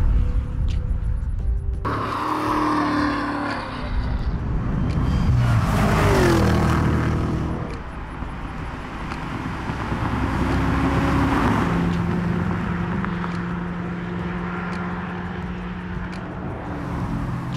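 Cadillac Blackwing sports sedan's engine and exhaust as the car drives past at speed, the pitch rising and falling through gear changes. It is loudest about six seconds in and settles into a steady engine note near the end.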